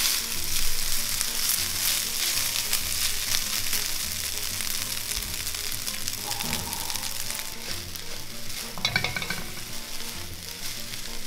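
Egg-yolk-coated cold rice sizzling in hot oil in a wok, a dense hiss that is loudest at first and gradually eases. About nine seconds in, spatulas clatter and scrape against the wok a few times as the rice begins to be tossed.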